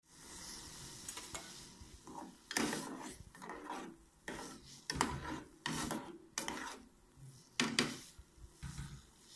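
Metal ladle stirring and scraping in an aluminium pot of black seeds in liquid, in irregular strokes with a few louder scrapes.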